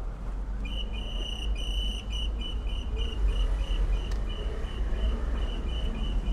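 Electronic beeper sounding a high, evenly pulsed beep about four times a second, starting about a second in, over a low street rumble.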